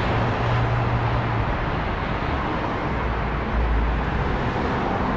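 Steady street traffic noise, with a low hum that stops about a second and a half in.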